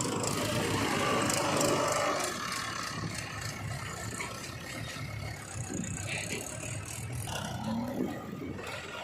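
Diesel engine of a JCB 3DX backhoe loader running while it works, louder for the first two seconds or so and then easing off, with some rattling.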